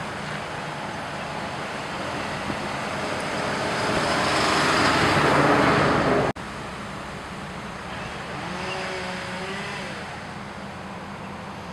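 Road traffic: a vehicle passes close, growing louder to a peak about five seconds in, then the sound cuts off abruptly and gives way to a steady traffic hum.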